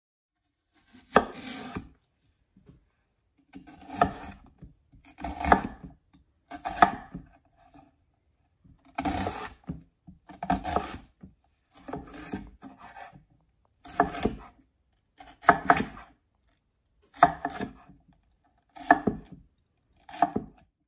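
Knife cutting vegetables on a cutting board: about a dozen separate cuts, each with a sharp start and a short scrape, spaced roughly a second and a half apart.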